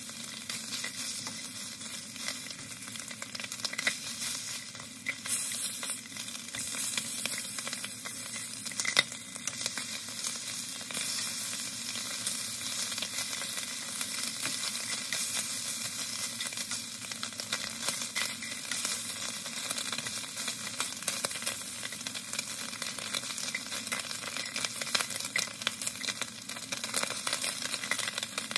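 Slices of Spam sizzling and crackling steadily in a nonstick frying pan, with occasional sharp clicks as wooden chopsticks turn them over.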